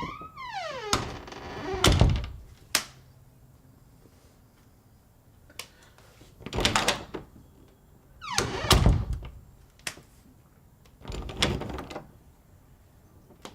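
House door being opened and closed: a hinge creak that falls in pitch at the start, then a series of about six thuds and clunks of the door and its latch, the loudest about two seconds in and about nine seconds in.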